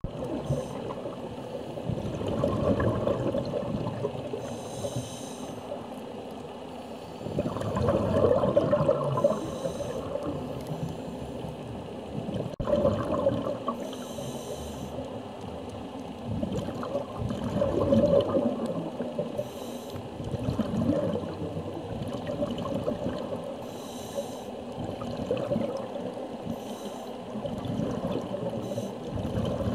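Scuba diver breathing through a regulator underwater: a short hiss on each inhale and a rush of exhaled bubbles, repeating in a slow cycle about every five seconds.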